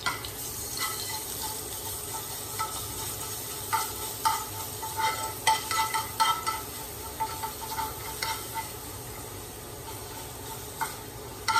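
Garlic-ginger paste sizzling in oil in a nonstick frying pan, with a steel spoon scraping and clicking against the pan as it is stirred.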